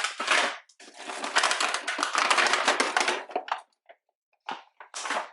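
Plastic grocery packaging crinkling and crackling as it is handled. A dense stretch of about two and a half seconds is framed by shorter rustles before and after.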